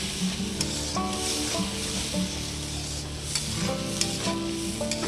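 Mustard paste and tomato masala sizzling in an aluminium kadai while a flat metal spatula stirs it, with a few sharp scrapes and clicks of the spatula against the pan. Soft background music runs underneath.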